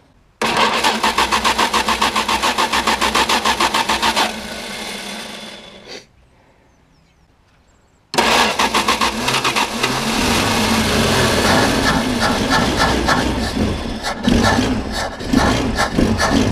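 1974 Plymouth Valiant engine cranking on its starter in a fast, even rhythm for about four seconds, then running briefly more smoothly before dying out. After a pause it starts and runs, its speed rising and falling unevenly near the end as the throttle is worked at the carburettor.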